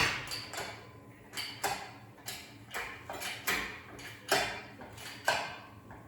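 About a dozen sharp metal knocks at an uneven pace of roughly two a second, each ringing briefly, made while working the engine into place.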